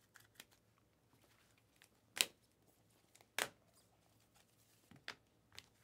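Trading cards being handled and set down in stacks on a tabletop: a few sharp taps, the two loudest about two and three and a half seconds in, with lighter ones near the end.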